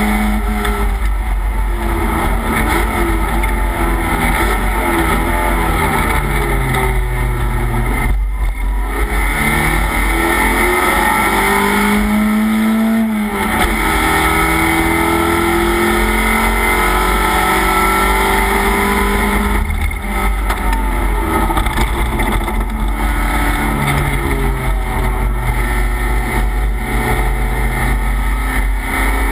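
Race car engine heard from inside the stripped, roll-caged cabin at racing speed, its pitch climbing and falling again and again through gear changes and corners, with brief dips about 8, 13 and 20 seconds in.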